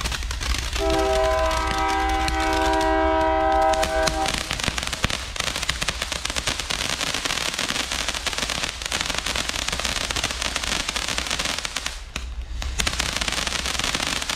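Firework fountain burning: a steady hiss thick with fine crackling, dipping briefly about twelve seconds in. Near the start a steady chord-like tone sounds over it for about three and a half seconds.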